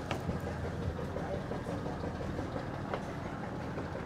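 An engine running steadily, a low even rumble, with a couple of faint clicks.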